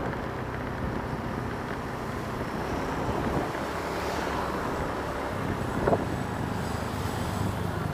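Wind rushing over the microphone of a moving Honda scooter, over the steady hum of its engine and tyres on the road, with one short sharp knock about six seconds in.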